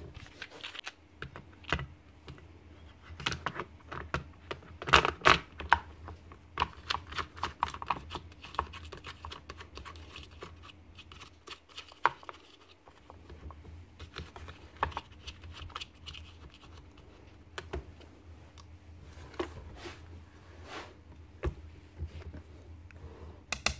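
Irregular clicks, taps and scrapes of hands fitting the plastic sprocket cover and its nuts back onto a Makita cordless chainsaw and handling the bar and chain. A faint steady hum runs underneath.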